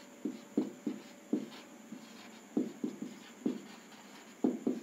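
Marker pen writing on a whiteboard: short strokes in irregular clusters, a few per second, with brief pauses between letters.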